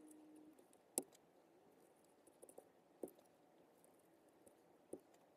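Mostly near silence, broken by a few faint sharp clicks as a rerooting needle is pushed through a soft vinyl doll scalp. The clearest click comes about a second in, with weaker ones around three and five seconds.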